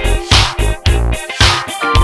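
Funk/R&B music with a steady beat, about two strong bass beats a second.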